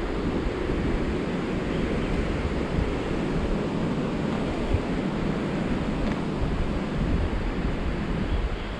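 Steady rushing of wind on the microphone mixed with the wash of surf on the beach, an even noise with no breaks.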